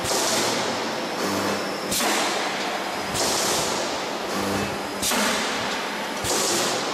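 Radiator panel production-line machinery running in a repeating cycle of about three seconds: sudden hissing air bursts, with a short low hum between them.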